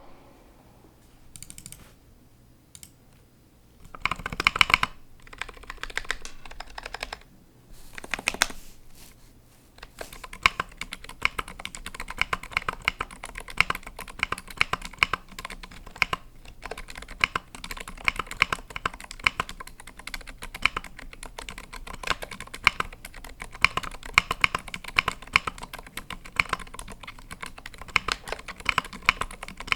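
Typing on a KBDfans Tofu65 65% mechanical keyboard fitted with Zilent V2 silent tactile switches. A few separate louder strokes come in the first ten seconds, then fast continuous typing runs for the rest.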